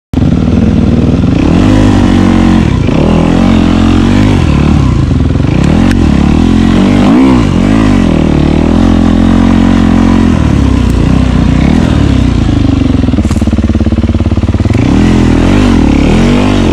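Yamaha dirt bike engine running loud while being ridden. Its revs rise and fall again and again with the throttle.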